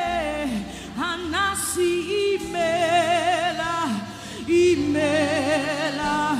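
Live Igbo gospel worship singing: long held notes with wide vibrato, each phrase sliding up at its start and falling away at its end, over a steady sustained backing.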